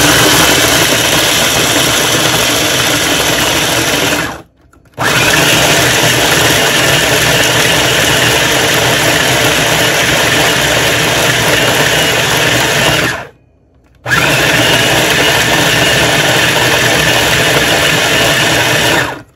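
Electric blender chopping nuts, running loud and steady in three long runs. It is switched off briefly about four seconds in and again for about a second around thirteen seconds in, then stops just before the end.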